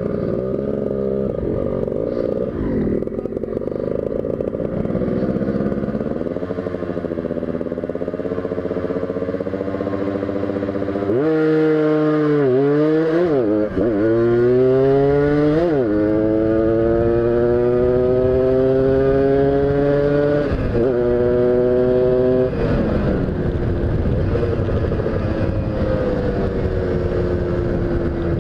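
Tuned motorcycle engine under hard riding, its pitch climbing through the revs and dropping sharply at each gear change, several times in a row, loudest around the middle.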